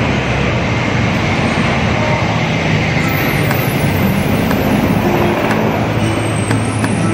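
Street traffic noise: a jeepney and motorcycles running past on the road, a steady loud rumble.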